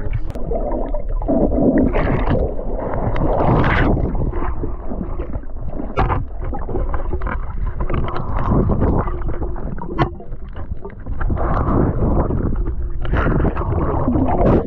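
Water sloshing and splashing right against a camera's microphone while swimming, an uneven muffled rumble that surges and dips, with a couple of sharp clicks about six and ten seconds in.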